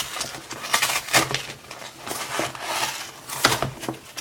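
Cardboard box and paper packing being handled and pulled about: irregular rustling and crinkling with sharp clicks and scrapes.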